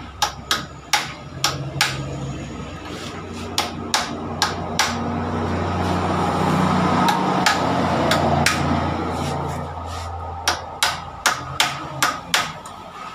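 Sharp metal-on-metal taps in irregular runs: a hammer driving a rod against a motorcycle's steering-head (knuckle) bearing lock nut to tighten it by hand. A low engine drone swells and fades behind the taps through the middle.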